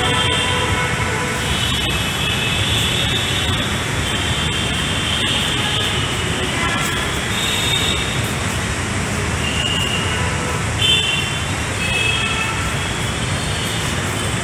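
Steady road-traffic rumble from a busy junction, with vehicle horns sounding now and then as short held tones.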